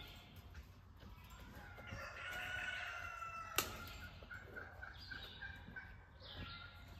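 A rooster crowing once, with a single sharp click or clank just after it, followed by a quick run of short clucks.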